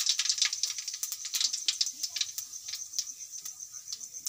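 Mustard and cumin seeds crackling in hot oil in a steel kadai: a dense run of sharp crackles that thins out after the first couple of seconds.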